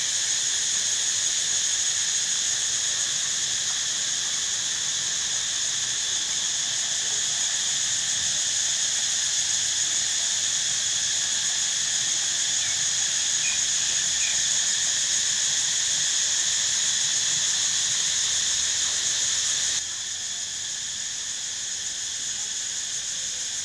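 A chorus of cicadas droning steadily and loudly in a high pitch, dropping slightly in level near the end.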